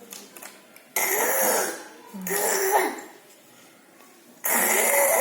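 A person's voice in three short utterances with pitch rising and falling, breathy and without clear words.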